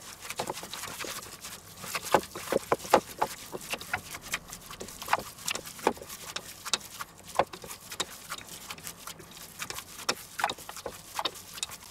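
Gloved hands kneading a minced-meat meatloaf mixture, with breadcrumbs worked in, in a stainless steel bowl: irregular squelching smacks, several a second.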